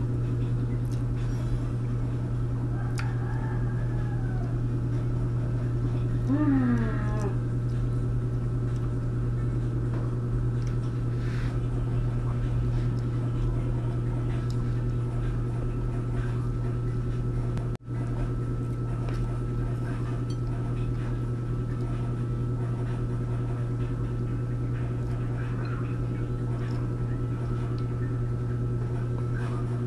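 A cat meows twice, about three and six seconds in, each call falling in pitch, the second louder. Under it a steady low hum runs throughout.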